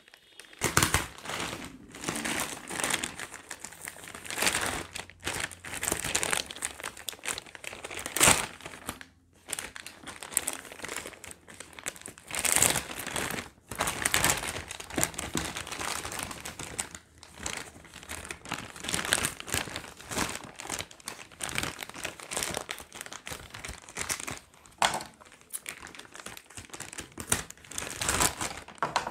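Plastic courier mailer bag crinkling and rustling as it is handled and pulled open to unpack the parcel, in uneven flurries, with a sharp loud crackle about eight seconds in.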